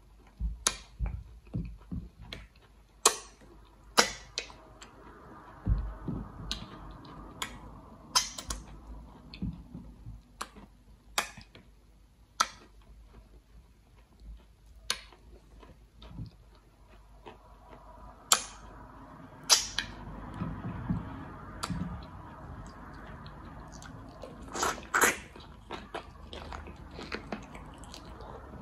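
Close-up eating sounds: wet lip smacks, sucking and chewing as egusi and okra soup is eaten by hand, with sharp smacks at irregular intervals about a second apart.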